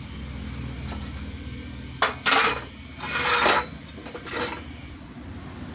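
Metal workshop parts being handled: a sharp knock about two seconds in, then bouts of metal scraping and clattering as the water-pump bearing housing, its new sleeve just pressed in, is taken out of the hydraulic press. A low steady hum runs underneath.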